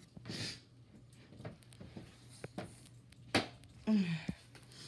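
Quiet room with a low hum, a short rustle, and a few sharp clicks, the loudest about three and a half seconds in. Near the end comes a brief murmured voice sound, falling in pitch.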